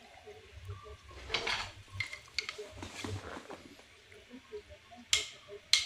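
Kitchen items being handled: faint, scattered clicks and knocks, with two sharper knocks near the end.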